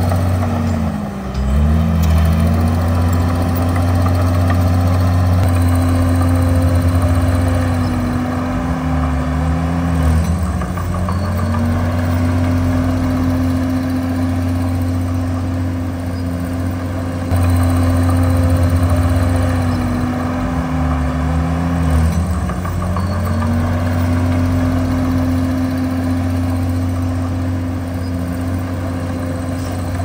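Komatsu D51PX bulldozer's diesel engine running steadily. Its pitch dips and climbs back three times, roughly every ten seconds.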